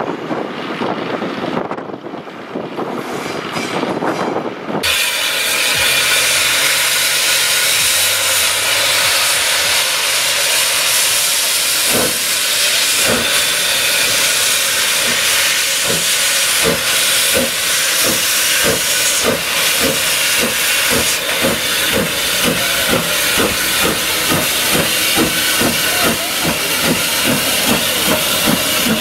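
Hunslet Austerity 0-6-0 saddle-tank steam locomotive working a train, with a loud steady hiss of steam from its open cylinder drain cocks and exhaust beats that start slow and quicken to two or three a second as it passes close by. The first five seconds, before a cut, are a quieter rumble from a Class 73 electro-diesel locomotive.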